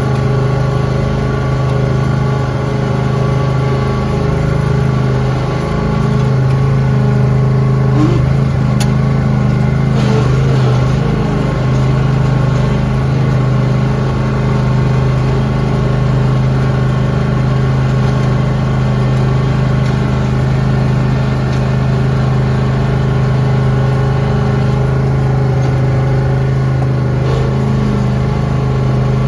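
Lawn tractor engine running steadily at working speed while plowing snow. Its pitch wavers briefly between about six and eleven seconds in, and a couple of short clicks are heard around then.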